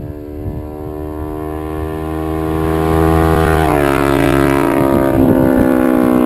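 Kawasaki Ninja 250R's small parallel-twin engine, fitted with a Level One Racing slip-on exhaust, growing louder as the bike approaches. Its pitch drops about four seconds in as it passes.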